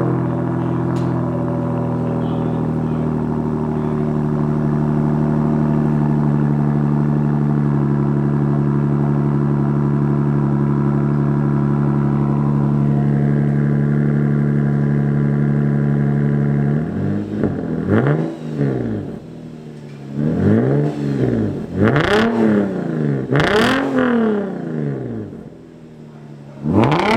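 Lexus IS250's 2.5-litre V6 running through a newly fitted Invidia RC350 exhaust. It drones steadily for about seventeen seconds, then is blipped in four or five quick revs, each rising and falling.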